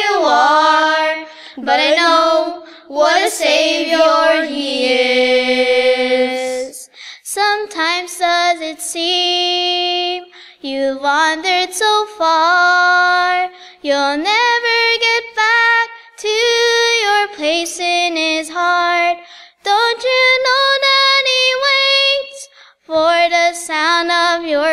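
A girl singing a gospel solo into a microphone, in sung phrases a few seconds long with short breaks for breath.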